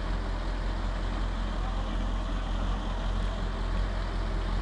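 Heavy truck engine idling steadily with a low rumble.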